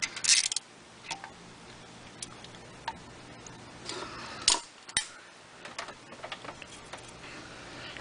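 Light metal clicks and ticks of a socket wrench backing out a 13 mm oil pump mounting nut that was found loose and turns out easily, with a brief rasp near the start and a sharper click about five seconds in.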